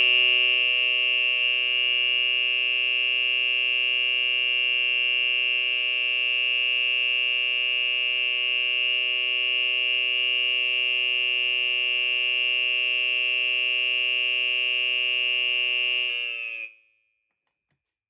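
Federal Signal Model 450E electronic fire horn sounding one steady, unbroken, extremely loud tone, which wavers briefly and cuts off about sixteen and a half seconds in.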